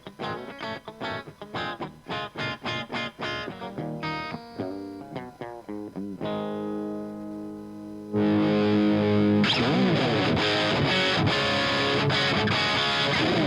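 Electric guitar played through an Omega Series Micro guitar amplifier with a distorted tone. First come quick picked single notes, then a few held notes. About eight seconds in, a louder sustained distorted chord starts and is held, with its pitch wavering.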